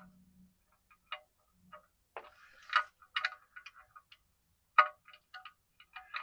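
Light metallic clicks and clinks from tools on the oil drain plug as it is threaded back into the oil pan. They come irregularly, singly or in short clusters.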